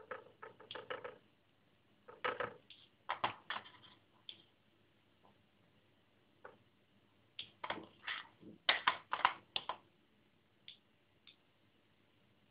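A metal spoon clicking and scraping against a plate in short clusters of taps, as sauce is spooned over the food. The busiest run of clicks comes past the middle, with two faint ticks near the end.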